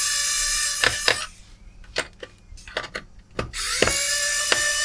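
Pen-style electric screwdriver running in two short bursts, undoing the screws of a laptop's hard-drive bay cover: a steady whine that stops about a second in and starts again for about a second and a half near the end, with small clicks and taps in between.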